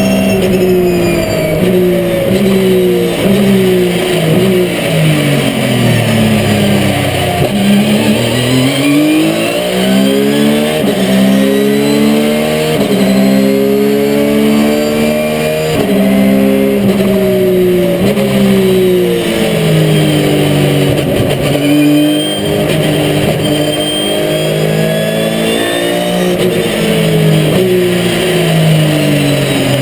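Porsche 997 GT3 RSR race car's flat-six engine heard from inside the cockpit on track. Engine speed falls for the first seven seconds or so, then climbs with sharp breaks at each gear change. It falls and climbs twice more, with a higher whine rising and falling along with it.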